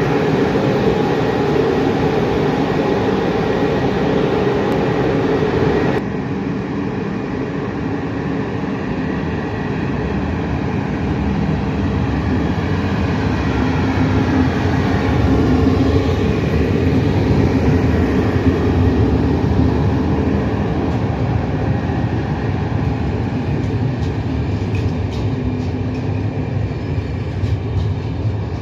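Macedonian Railways class 461 electric locomotive running with its passenger train: a steady drone from its traction motors and cooling fans, with whining tones that rise and fall. A run of clicks near the end comes as the coaches' wheels pass over the rails.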